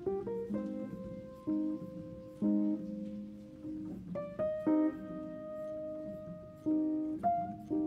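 Instrumental background music: plucked, guitar-like notes at a slow pace, some held and left ringing.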